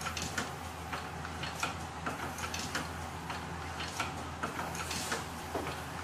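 Light, irregular clicking and ticking from small machinery and hand work on a factory floor, several clicks a second, over a steady low hum.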